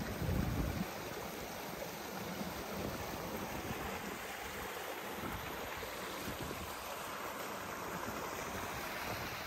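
Small moorland stream running steadily over rocks and splashing down a little cascade, with a brief low rumble in the first second.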